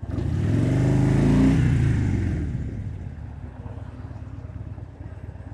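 Harley-Davidson Dyna Street Bob V-twin with Vance & Hines Straight Shots slip-on mufflers accelerating hard, loudest about a second and a half in. About two and a half seconds in it eases off the throttle and settles to a quieter, steady lope.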